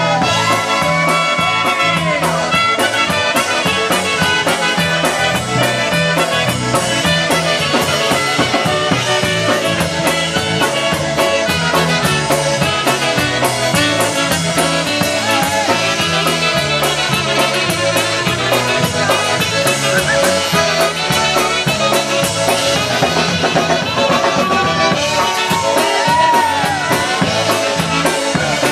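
Live polka band playing an instrumental passage: trumpet and saxophone carry the melody over drum kit and bass guitar, with a steady, even beat in the bass.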